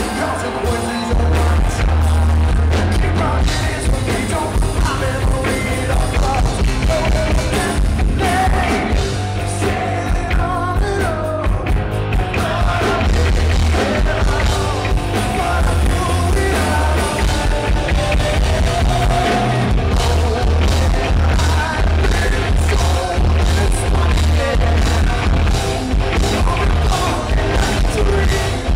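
Live rock band playing loudly: a male lead singer sings over drums and a heavy low-end pulse, without pause.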